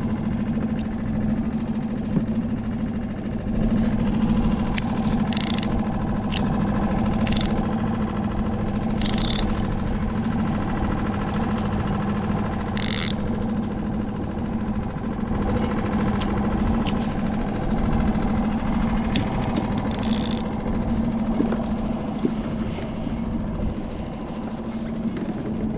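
A small motor on the skiff running with a steady hum over a low rumble, with a few short hissing splashes now and then.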